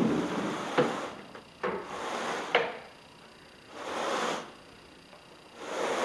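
A carpet rake pulled through carpet pile in about four separate swishing strokes, each a little under a second long, with a few sharp clicks in the first half.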